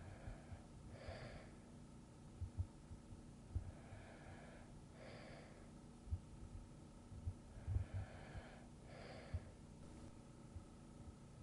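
Slow, soft breathing of a person asleep, about one breath every four seconds. Each breath is two gentle rushes of air, the second a little stronger and brighter. Faint low thuds come now and then between the breaths.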